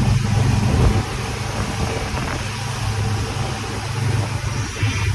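Motorboat engine running steadily under way, a low hum beneath a constant rushing noise.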